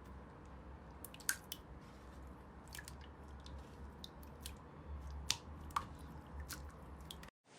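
Slime squished and pressed by hand, giving irregular small sticky pops and clicks over a low steady hum. The sound cuts off abruptly near the end.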